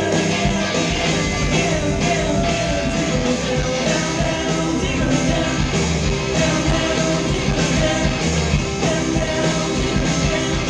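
Rock-and-roll band playing live: electric guitar, electric bass and drums, with a voice singing over them.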